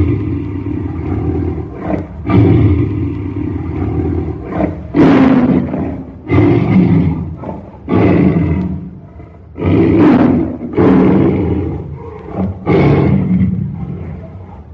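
Tiger roaring furiously in a string of loud roars, each starting abruptly, one every one to two seconds.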